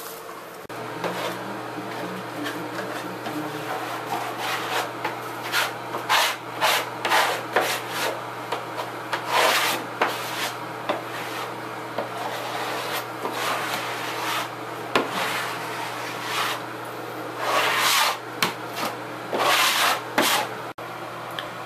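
Putty knife scraping white filler across a plywood subfloor in a run of irregular strokes, over a steady low hum.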